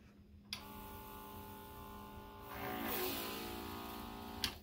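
Ryobi ONE+ 18V cordless electrostatic sprayer switched on with a click about half a second in, its pump motor running with a steady whine over the hiss of the spray. The whine wavers and grows louder midway, then cuts off with a click near the end.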